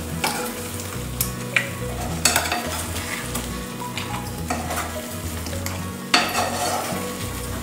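Potato masher mashing and stirring thick pav bhaji masala in a nonstick frying pan, with scrapes and taps against the pan over the sizzle of the simmering mix. The strokes are spread unevenly, with a stronger one about six seconds in.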